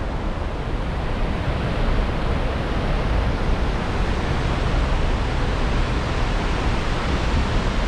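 A waterfall in flood after heavy rain: a heavy volume of water pouring over the falls in a loud, steady rush with a deep low rumble.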